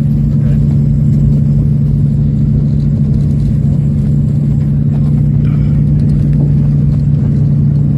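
Aircraft engine drone heard inside the passenger cabin: a loud, steady hum with a low rumble under it.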